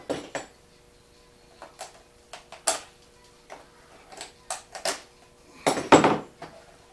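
Metal tools and parts clinking and clattering as they are handled, a scattered series of sharp knocks with the loudest clatter about six seconds in.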